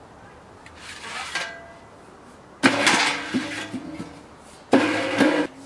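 Steel stove-pipe sections of a wood stove scraping and rattling against each other as they are pulled apart and fitted. There is a faint scrape about a second in, then two loud metallic scrapes with a hollow ringing tone, one near the middle and one near the end.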